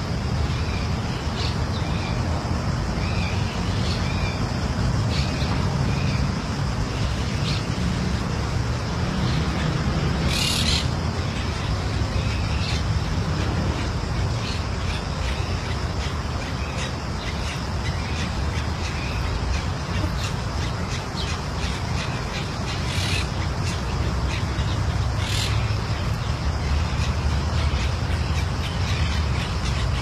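Monk parakeets calling in short, harsh squawks, with a few louder calls about ten seconds in and twice more a little after twenty seconds, over a steady low rumble.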